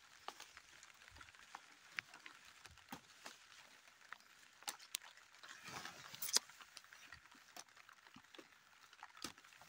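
Faint rustling of wet bean leaves and a jacket sleeve, with scattered small snaps, as green beans are picked by hand. The loudest rustle and snap come about six seconds in.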